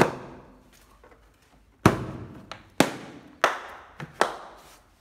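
Five sharp knocks and clunks at irregular intervals, each with a short ringing tail, from a Ryobi 12V cordless drill/driver and its battery being handled.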